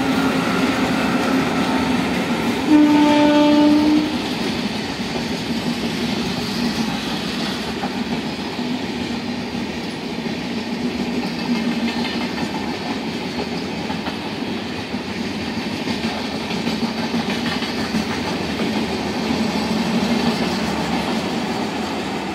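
A WAG-5 electric locomotive and its passenger coaches pass on the line with a steady rolling rumble. The locomotive's horn sounds once, loud, for just over a second about three seconds in.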